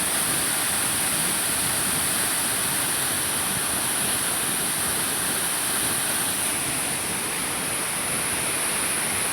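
Waterfall: a steady rush of falling water, with a constant high hiss above it.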